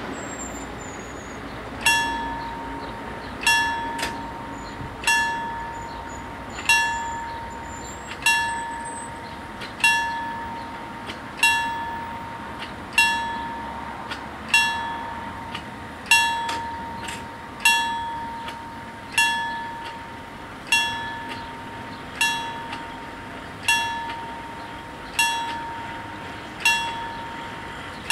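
Level-crossing warning bell of an Italian FS 64 crossing, struck once about every one and a half seconds starting about two seconds in, each stroke ringing at one clear pitch and fading before the next. It is the crossing's warning that a train is approaching and the barriers are closing.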